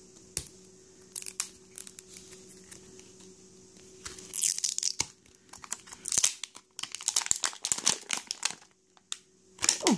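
Clear plastic shrink-wrap being torn and peeled off an L.O.L. Surprise ball, crinkling. At first there are scattered crackles as the ball is turned in the hands. From about four seconds in, the crinkling and tearing come thick and fast as the wrap is pulled away.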